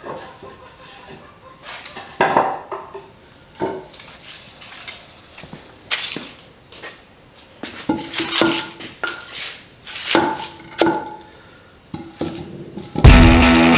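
Scattered clinks and clatters of hard objects being handled and set down, some leaving a short ringing tone. Loud guitar music starts near the end.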